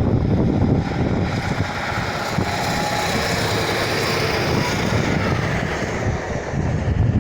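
Class 150 diesel multiple unit running, a steady low engine rumble under a rushing noise that swells about a second in and eases off near the end.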